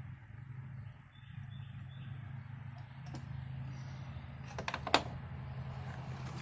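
A few sharp clicks of hand tools against metal, a quick cluster of them about five seconds in, the last the loudest, over a steady low hum.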